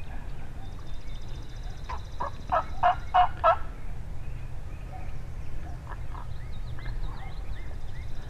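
Wild turkey calling: a loud series of about six quick notes, a third of a second apart, between two and four seconds in. Small songbirds chirp faintly afterwards.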